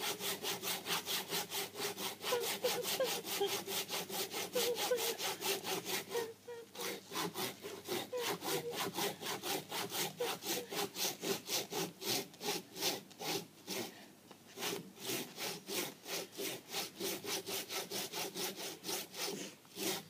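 Hand saw cutting into a palm tree trunk in quick, even strokes, about three a second, with short breaks about six seconds in and again near fourteen seconds.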